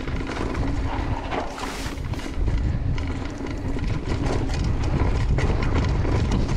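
Mountain bike descending a loose dirt trail at speed. Wind buffets the microphone while the tyres roll over dirt and the bike rattles with frequent clicks and knocks over the bumps.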